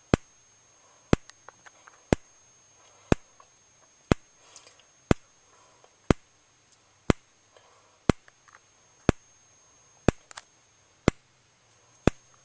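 EST Genesis G4RF-S7VM fire alarm speaker strobe flashing, each flash a sharp click, once a second.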